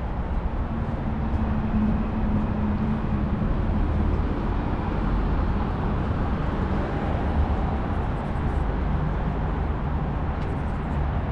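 City street traffic: a steady rumble of vehicles and tyres, with a passing engine's hum standing out about two seconds in and again about eight seconds in.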